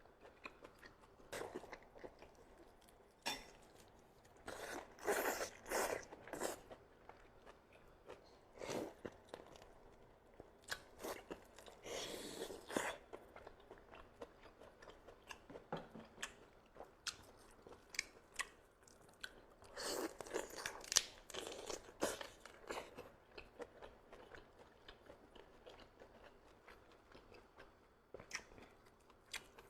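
A person chewing and biting steamed chicken, with irregular wet smacks and crunchy bites. There are louder clusters of bites about five, twelve and twenty-one seconds in.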